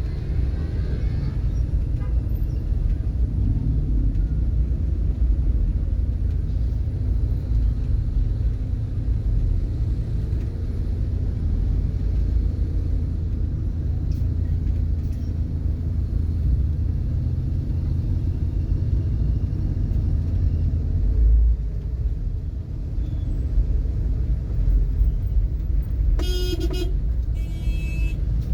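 Steady low rumble of road traffic in a jam, with a car horn honking twice near the end.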